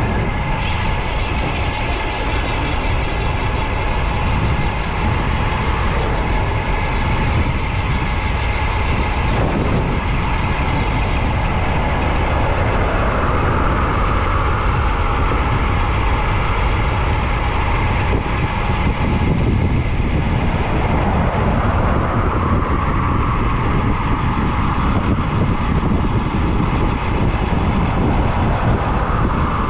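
Steady low rumble of wind rushing over the microphone as a road bicycle descends at speed.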